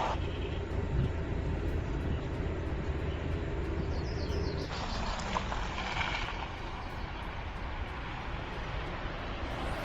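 Road and tyre noise with a steady low rumble from a Volkswagen ID. Buzz, an electric van, as it drives. The sound changes abruptly about halfway through, like a cut to another shot.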